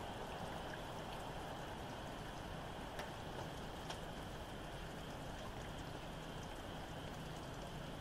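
Steady rain falling, with sharp drips ticking here and there, two clearer ones about three and four seconds in, over a faint distant frog chorus.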